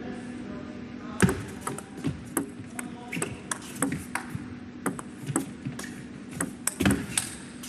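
Table tennis rally: the ball clicking sharply off rackets and table in a quick, uneven series that starts about a second in, over a low steady hall hum.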